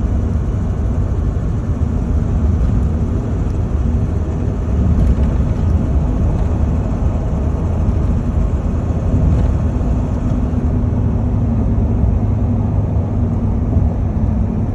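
7.3 engine running under load while cruising, a steady low drone with a fast knocking in it. The knock is typical of an injector or exhaust problem rather than a mechanical one, since it stops when off throttle.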